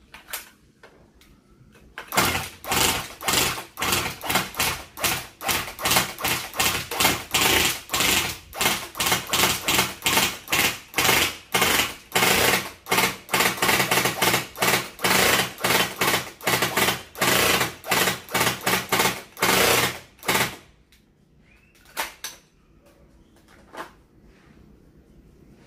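Tokyo Marui AUG electric airsoft rifle firing a long rapid string of shots, about three to four a second, starting about two seconds in and stopping about twenty seconds in. A couple of single shots or clicks follow a little later.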